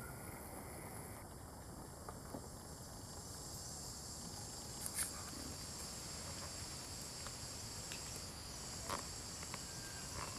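Steady high-pitched chorus of insects, with a few short faint clicks, the clearest about five seconds in and another near nine seconds.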